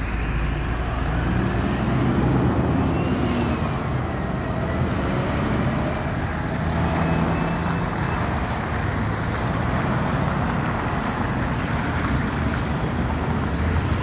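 Road traffic with a heavy diesel truck, a Scania tractor unit hauling a bulk tanker trailer, moving through a junction among passing cars. The engine note rises and falls as it pulls away.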